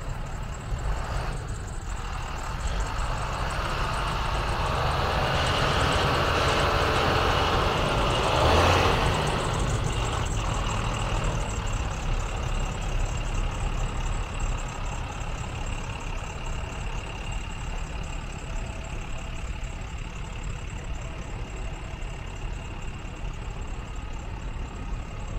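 A 2005 International 4300 medium-duty truck's diesel engine idling steadily. It swells louder for a few seconds around the middle, peaking about eight seconds in, then settles back.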